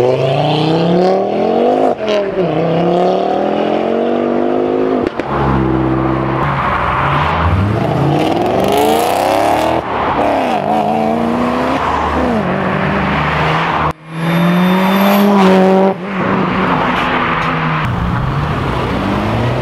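Modified performance cars accelerating hard one after another, engines revving up in rising sweeps with dips at the gear changes. About two-thirds of the way through, the loudest car holds a steady note with a high whine over it.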